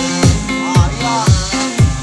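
Background music with a steady beat about twice a second, a bass line and a wavering lead melody.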